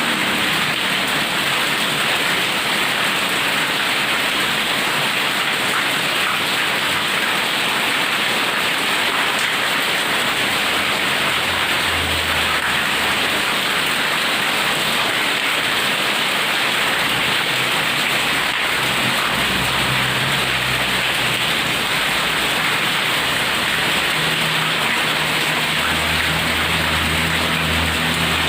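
Heavy rain falling steadily, with low rumbles of thunder about twelve seconds in and again near the end.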